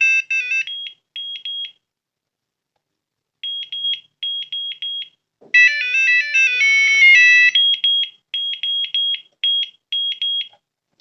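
Digital table alarm clock playing its electronic alarm tones: quick runs of short high beeps on one pitch, then a louder two-second multi-note jingle about halfway through, then the beeps again. The tones are being cycled through to pick an alarm sound.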